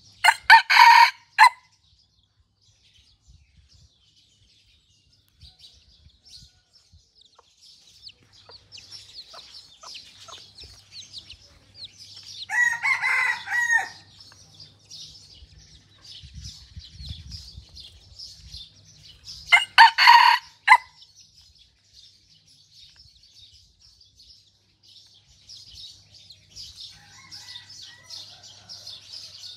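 Dark-red 'pradu'-coloured junglefowl-hybrid decoy rooster crowing three times, each crow short, about a second long: one right at the start, one about twelve seconds in and one about twenty seconds in. Small birds chirp faintly and steadily in the background.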